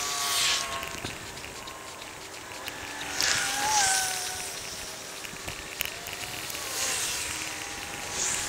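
Bicycle rolling along a snow-dusted paved path: steady riding noise with a hissing swell every three seconds or so.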